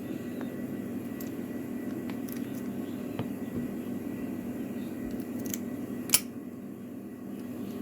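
Light metal clicks and taps of padlock parts being handled and fitted during reassembly, with one sharper click about six seconds in, over a steady background hum.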